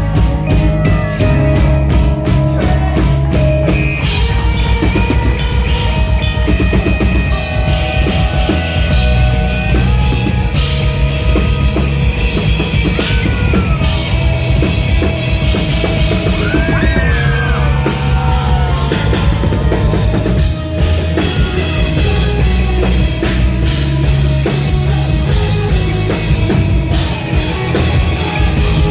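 Post-hardcore rock band playing live through a PA in an instrumental passage, driven by a busy drum kit with kick and snare, with a few notes sliding up and down in pitch around the middle.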